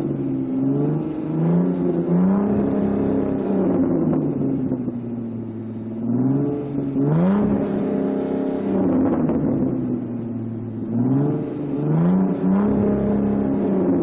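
Supercar engine revving three times. Each time the pitch climbs, holds high briefly and then drops back toward a lower, steadier note.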